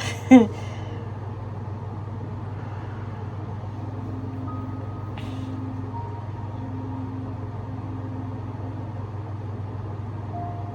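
A steady low hum, with faint held tones drifting in and out and a brief rustle about five seconds in.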